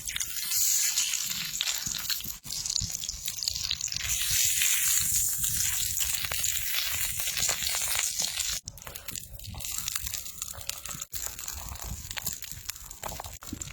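Beef sizzling on a hot cooking stone: a steady frying hiss full of small crackles and pops, louder in the first part and dropping off after a break.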